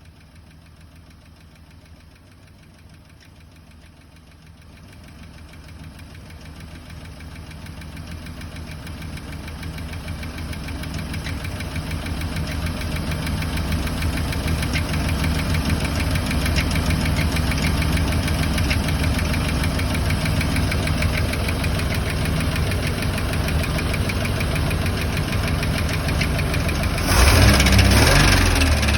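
OMC 4.3-litre V6 marine engine running steadily, growing louder over the first half, with a sudden louder stretch of about two seconds near the end.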